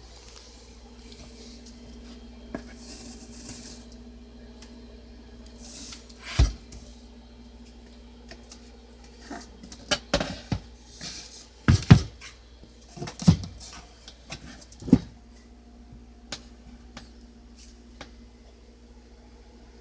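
Olivetti Underwood Studio 44 portable typewriter being worked by hand: scattered single sharp metallic clacks and knocks at an uneven pace, mostly in the middle of the stretch, over a steady low hum.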